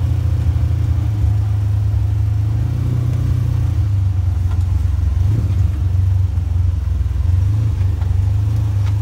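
Engine of a Polaris General side-by-side running with a steady low drone while it drives along the trail at an even speed.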